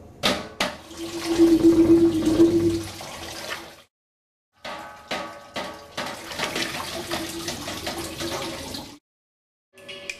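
Noise Barrels sound-art instrument playing a rushing, hiss-like noise with a steady tone running through it, after a few sharp clicks at the start. The noise cuts off abruptly to silence about four seconds in, starts again half a second later, and cuts off again about nine seconds in.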